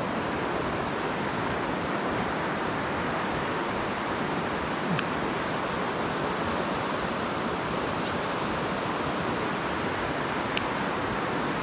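Shallow, rocky mountain stream running over stones and through riffles: a steady rushing of water.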